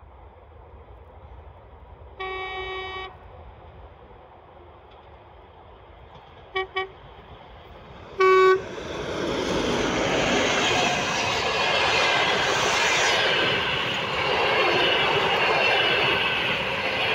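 TEP70 diesel locomotive sounding its horn: one long blast, two short blasts, then the loudest blast about eight seconds in. The locomotive and its passenger coaches then roll past close by, a steady loud rumble of engine and wheels on the track.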